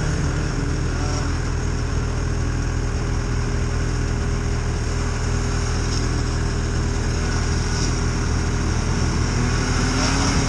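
Snowmobile engine running at a steady pitch while riding along a trail, the engine note starting to rise near the end.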